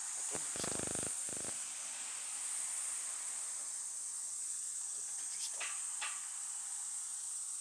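A steady, high-pitched chorus of insects trilling. About half a second in there is a brief rasping, crackling noise lasting about a second, and near the end there are a few faint ticks.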